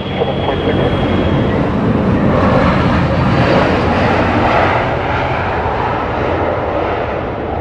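Airbus A320 jet airliner's two turbofan engines at takeoff thrust as it rolls close past on its takeoff run. The jet noise swells to its loudest about three to four seconds in, then eases slightly as the aircraft moves away.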